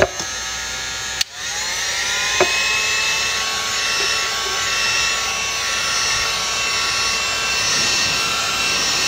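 Electric heat gun's fan blowing with a steady whine while it fuses encaustic wax into a print. About a second in it cuts out for a moment, then spins back up with a rising whine and settles, running a little louder than before.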